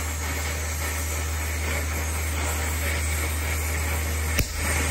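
Oxy-acetylene torch flame hissing steadily as it heats a stuck suspension link nut to free it. A single sharp click comes near the end.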